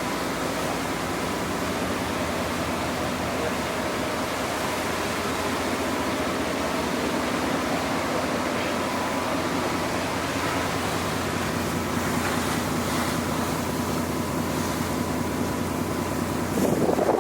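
Ferry underway: steady engine drone and water rushing past the hull, with wind buffeting the microphone. A louder gust or surge comes near the end.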